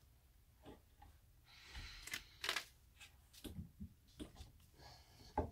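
Gloved hands shifting a loaf of cold process soap on a plastic soap cutter and paper liner: a short rustle of paper about two seconds in, then a few light knocks, and a thump near the end.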